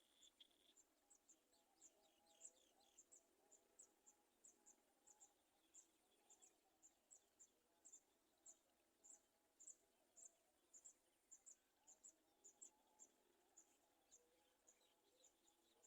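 Near silence with faint, short high-pitched chirps repeating about twice a second, and a brief run of lower chirps in the first three seconds.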